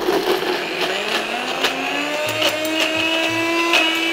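Small personal bullet-style blender's motor blitzing frozen raspberries, sugar, lime juice and water into a sauce. Its pitch climbs as it spins up over the first couple of seconds, then holds steady, with sharp ticks throughout.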